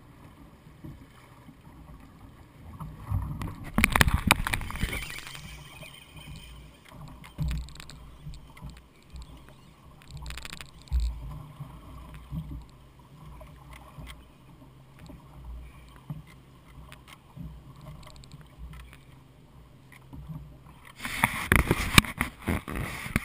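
Small fishing boat on open water: water slapping and washing against the hull, with a steady low hum under it and loud rushes of wind or splashing noise about four seconds in and again near the end.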